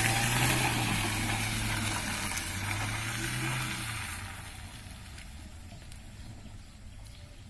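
Toyota Rush compact SUV driving past on a muddy dirt road, with its engine hum and tyre hiss loud at first. The sound fades after about four seconds as the SUV pulls away up the road.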